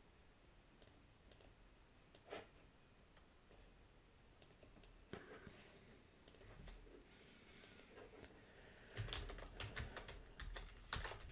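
Computer keyboard keys and clicks tapped now and then over a quiet background, turning into a quick run of typing from about nine seconds in.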